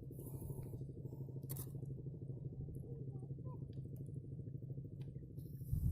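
A steady low hum with a fast, even pulsing, like a motor running, and a few faint clicks over it.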